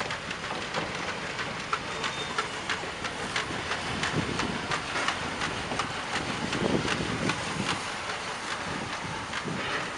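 Vale of Rheidol narrow-gauge steam tank locomotive No. 8 and its wooden-bodied coaches rolling past, with a low rumble and many sharp clicks and clanks from wheels and couplings over the rail joints.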